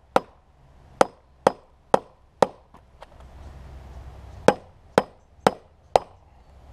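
A steel bar jabbed repeatedly down into the opened cells of a lead-acid car battery, giving sharp knocks with a brief metallic ring about two a second: five in a row, a pause of about two seconds, then four more. The bar is working at the lead plates, which have swollen and are packed tight in their cells.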